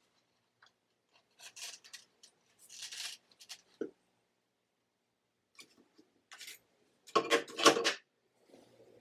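Hand work with plant-mounting materials: scattered bursts of rustling, snipping and handling with a short knock, and a louder cluster of crackling near the end.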